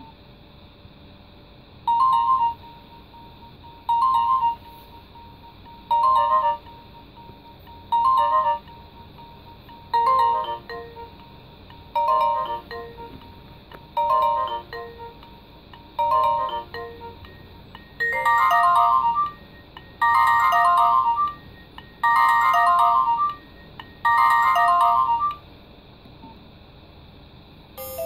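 Nokia 1600 mobile phone playing its built-in alarm ringtones through its small speaker: short electronic beep phrases repeating about every two seconds. About ten seconds in the phrases take on lower notes, and after about eighteen seconds they become longer and busier, then they stop a few seconds before the end.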